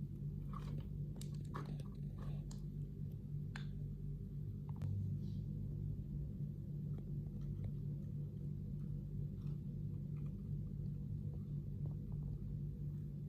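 Light clicks and short rustles of small objects being handled, thickest in the first five seconds and sparse after, over a steady low hum.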